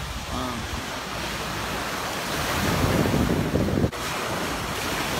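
Small waves washing up onto a pebble beach, with wind rumbling on the microphone. The sound breaks off for an instant about four seconds in.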